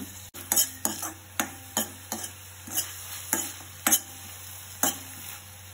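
A spatula stirring and scraping around a pan of crushed shallots frying in a little oil, in repeated strokes about two a second over a steady sizzle.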